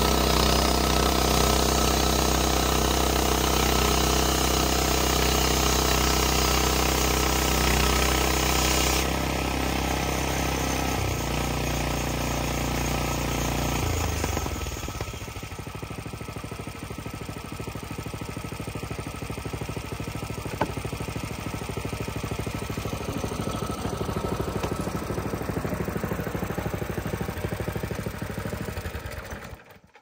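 Portable band sawmill's gas engine running at full speed while the band blade cuts through a log, the cutting noise easing about nine seconds in as the cut ends. Around fourteen seconds in the engine drops to a lower idling speed and runs on until the sound cuts off suddenly just before the end.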